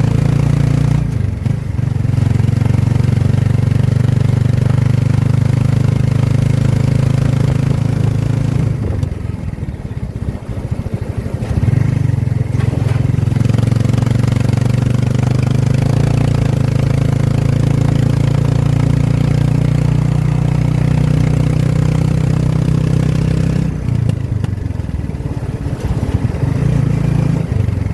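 Motorcycle engine of a Philippine tricycle running steadily under way, easing off twice, about a third of the way in and again near the end, then picking up again.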